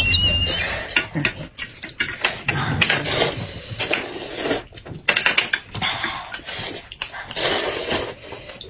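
Hot-and-sour sweet potato noodles being slurped from a metal bowl with chopsticks, several separate slurps, with light clinks of chopsticks against the bowls between them.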